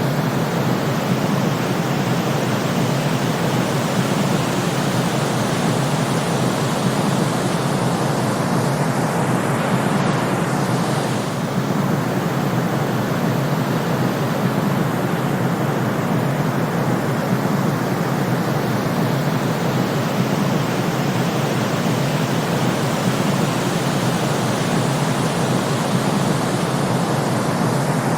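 Steady synthetic noise for sleep, a constant even rush weighted toward the low and middle range, with no rhythm or tones.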